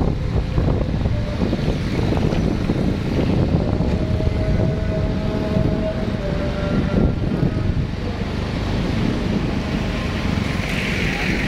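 Wind rushing steadily over the microphone, mixed with the running engine of a motorcycle being ridden down the road.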